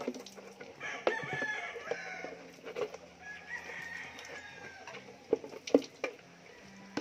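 A rooster crowing twice, about a second in and again with a long, slightly falling call around the middle, over scattered wet clicks and smacks of piglets feeding from a hand-held container.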